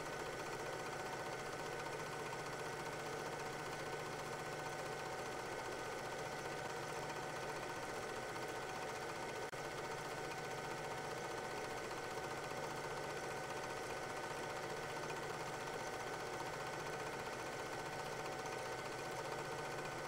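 8 mm film projector running: a steady mechanical whir with a constant hum underneath.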